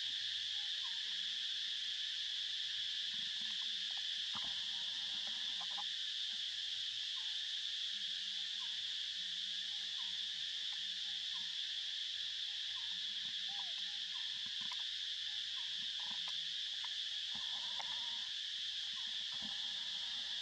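Steady high-pitched drone of insects in chorus, with faint short chirps now and then.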